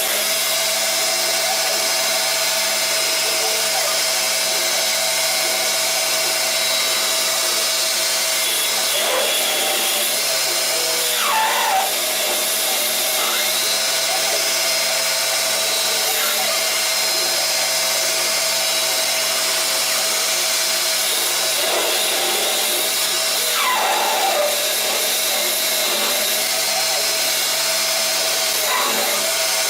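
CNC lathe running, a steady machine whine and hum under a high hiss. Several times a brief whine drops in pitch and settles back into the steady tone.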